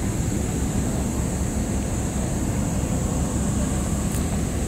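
Coach buses' diesel engines running close by as they move off, a steady low rumble, with a steady high hiss over it.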